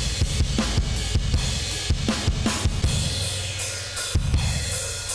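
A recorded drum kit playing a steady beat of kick, snare and cymbals through a vari-mu tube compressor plugin, its tube-style saturation stage driven near the drive knob's clockwise extreme for crunchy distortion. The beat gets quieter in the last couple of seconds.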